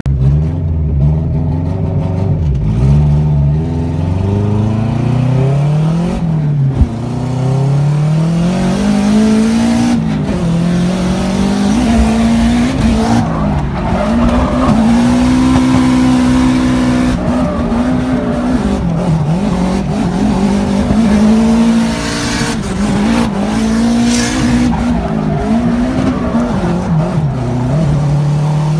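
Drift car's engine heard from inside the cabin, revving up and down over and over as the car is driven sideways, often held high for a few seconds before dropping back. A single sharp knock about seven seconds in.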